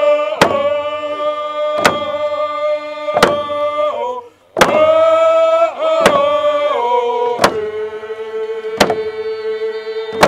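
Group of singers chanting a Coast Salish procession song in unison, holding long notes, over hide hand drums struck together in a slow, even beat about once every second and a half. The singing breaks off for a moment about four seconds in, then resumes.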